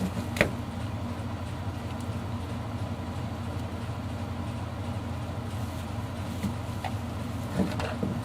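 Steady low machine hum, with a sharp click about half a second in and a few light knocks near the end as plastic battery packs are handled.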